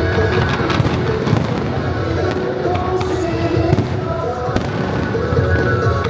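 Aerial fireworks bursting in quick succession, a sharp bang every half second to a second, over music with long held notes played in time with the show.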